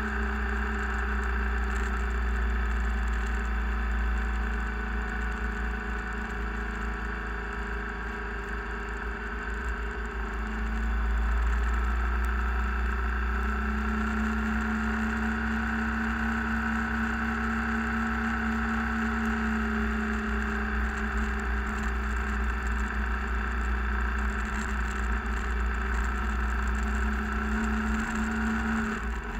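A vehicle driving on a gravel road: steady engine drone and tyre rumble, with a few humming tones that shift slightly in pitch. It gets a little louder about eleven seconds in.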